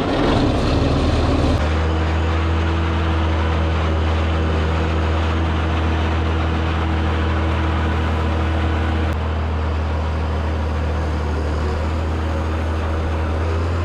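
Massey Ferguson 1130 tractor's diesel engine just after starting, running rough for about a second and a half, then settling into a steady idle.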